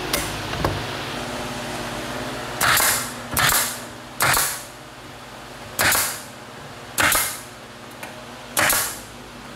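Bostitch pneumatic nailer firing six nails into plywood, each shot a sharp bang with a short tail, spaced about a second apart and starting a couple of seconds in.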